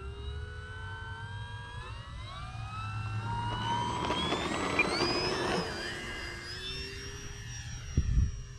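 Electric brushless motor and propeller of an E-flite Air Tractor 1.5m RC plane throttling up for takeoff, its whine rising steadily in pitch over the first five seconds as it runs down the runway, then holding steady as it climbs out. A brief low thump near the end.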